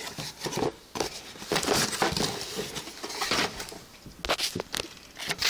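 Small parcel packaging being opened and handled by hand: irregular rustling, crinkling and tapping.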